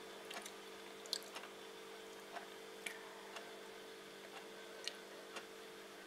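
Quiet indoor room tone: a faint steady hum with a few scattered small clicks and ticks.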